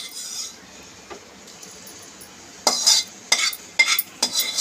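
A metal spoon scraping and clinking against cookware in a run of short strokes in the second half, with a quieter stretch before them.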